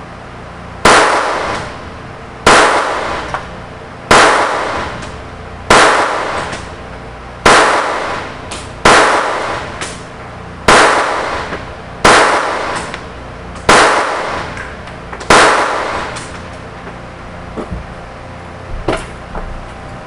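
Stoeger Luger .22LR pistol firing ten single shots at a steady pace, about one every second and a half, each crack followed by a short echo. A few lighter clicks follow near the end.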